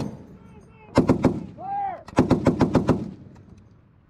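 M2 .50-calibre heavy machine gun firing two short bursts of rapid shots, a short one about a second in and a longer one of about seven rounds a second later.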